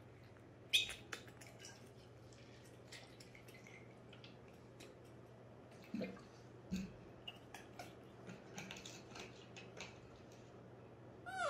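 Small plastic clicks, taps and soft rustles as baby macaques handle a little blue plastic cup and scuffle on a fluffy rug, the sharpest click about a second in. A short high squeak from one of the baby monkeys comes right at the end, over a faint steady low hum.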